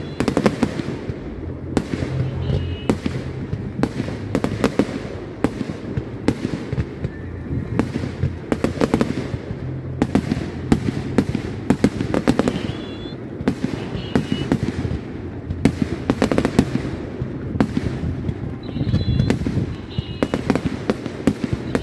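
Fireworks display: aerial shells bursting in quick succession, with many sharp bangs and crackles, often several close together, over a continuous low rumble.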